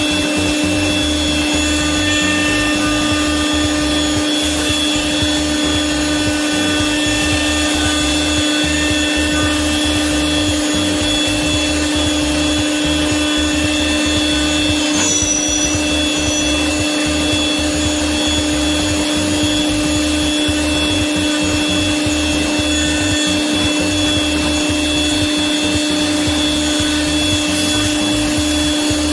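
CNC milling machine spindle running with a small end mill cutting aluminium: a steady machine hum with a constant pitched whine and fainter high tones above it, unchanging at a constant level.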